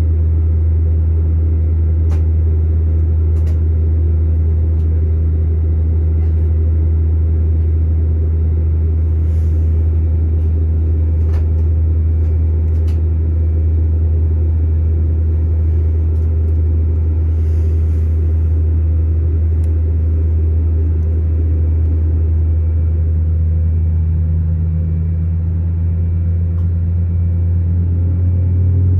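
Steady low drone inside the cabin of an Airbus A321neo with its engines running, heard from a window seat, with a few faint clicks. A second, higher hum joins in about three-quarters of the way through.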